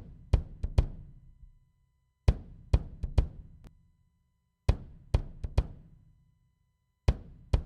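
Recorded drum kit hits playing back without cymbals: a repeating figure of four quick strokes about every two and a half seconds, each group ringing out and dying away before the next.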